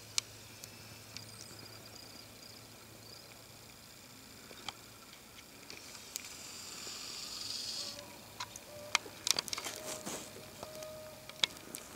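Faint rustling and scattered clicks and taps of a handheld camera being carried and handled close to dry grass and hay. The rustle swells briefly in the middle, and the clicks come thicker near the end.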